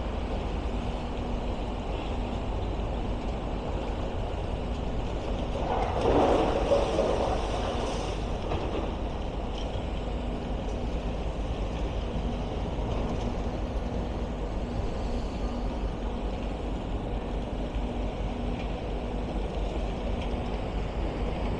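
Heavy demolition machinery working: a mobile rock crusher and excavators running steadily with a continuous rumble and a faint hum. About six seconds in, a louder rattling passage of about two seconds, as of material being moved or dropped.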